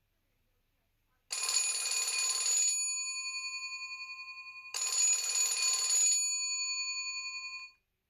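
Alcatel VM800 mobile phone playing a telephone-bell ringtone through its small loudspeaker. Two rings about three and a half seconds apart, each a rattling burst of about a second and a half that fades into a ringing tone.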